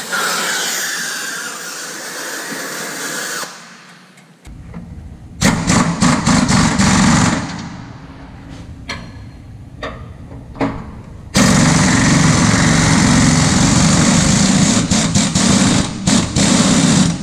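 Oxy-acetylene torch flame hissing while heating a seized bolt, stopping about three seconds in. A pneumatic impact wrench then hammers at the heated bolt, first in short bursts and then in a long steady run from about eleven seconds.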